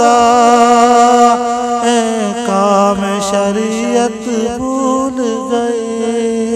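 Male voice singing an Urdu religious nazm, drawing out long wavering notes over a steady hummed drone, slowly getting quieter toward the end.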